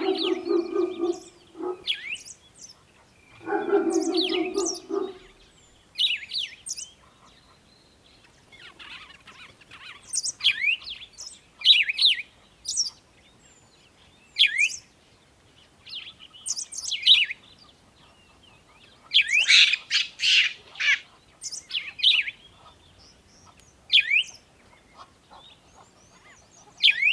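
Small birds chirping: short, sharp chirps that sweep downward, coming in clusters every second or two. In the first five seconds, two longer, lower animal calls sound.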